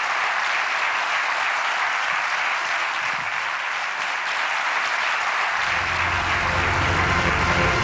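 A large auditorium audience applauding steadily. About five and a half seconds in, closing music with steady low notes comes in under the clapping.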